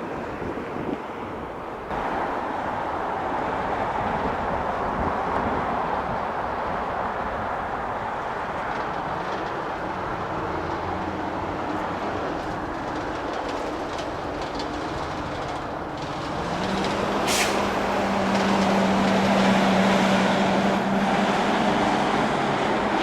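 Jet engines of a Boeing 777-200LR running at taxi power, a steady rumble. About 16 seconds in, a low hum steps up in pitch and the sound grows louder. A single sharp click follows shortly after.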